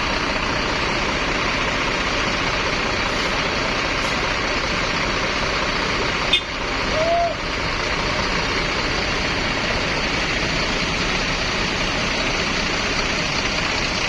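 Steady roar of heavy road traffic close by, a bus or truck engine and road noise, with a single sharp click about six seconds in.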